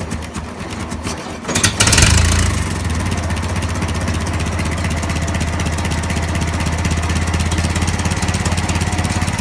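1955 International 300 Utility tractor's four-cylinder engine running, quieter at first, then picking up and growing louder about one and a half seconds in before settling into a steady, even run. The engine runs smoothly with its bad lifter and pushrod replaced.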